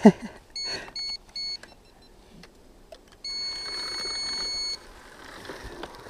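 Electronic beeping: three short beeps in a row at one steady pitch, then about two seconds later one long beep at the same pitch lasting about a second and a half. A brief, sharp falling-pitch sound comes at the very start.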